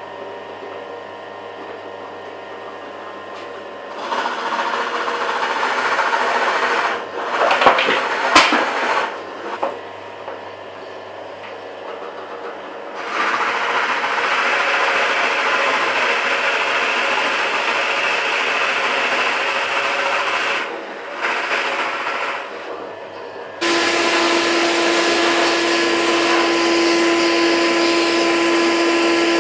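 Pillar drill running with a large bit boring tea-light holes in whitewood: a motor hum, then long stretches of rough cutting noise as the bit feeds into the wood, with a few sharp clicks. About three-quarters of the way through, a vacuum cleaner switches on suddenly and runs with a steady hum to clear the chips.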